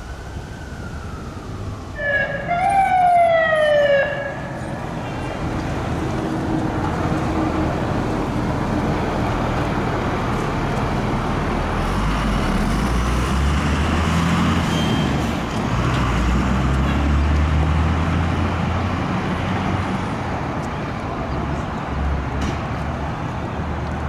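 Fire-rescue truck siren wailing, then switching to fast falling yelps about two seconds in that stop abruptly after two seconds. After that come steady traffic noise and the low rumble of an idling fire engine's diesel engine.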